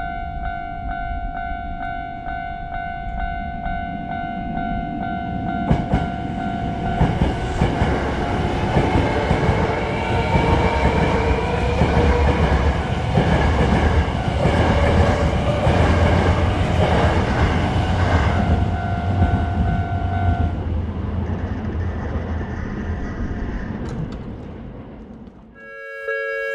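Japanese level-crossing warning bell ringing while a train passes, with a low rumble and wheels clicking over the rail joints. The bell stops about twenty seconds in, and the train fades out shortly after. Near the end a different crossing bell starts.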